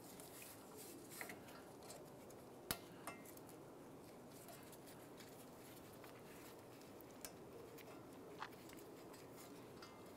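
Near silence with a few faint clicks and taps from gloved hands working the ABS sensor wire and its plastic clip against the rear control arm. The sharpest click comes a little over a quarter of the way in.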